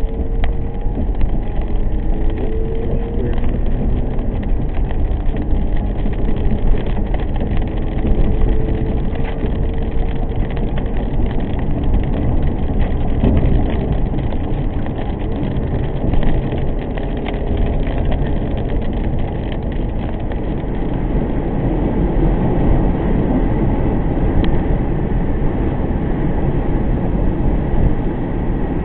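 A car driving on the highway, heard from inside the cabin: steady road and engine noise. The engine note climbs a few times in the first ten seconds as the car speeds up.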